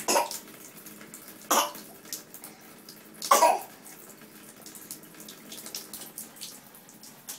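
A toddler's three short, breathy vocal outbursts, about a second and a half apart, with faint splashing and water sounds in between.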